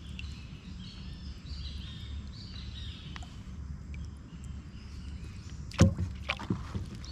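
Collapsible crab pot handled against a kayak: a steady low rumble, then about six seconds in a sharp knock followed by a couple of lighter clatters as the pot's steel ring bumps the kayak.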